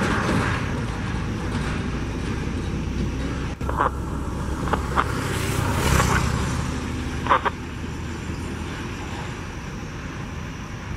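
Airbus A320's jet engines at taxi idle: a steady broad rumble and whine that eases off slightly, with a few short high chirps about four and seven seconds in.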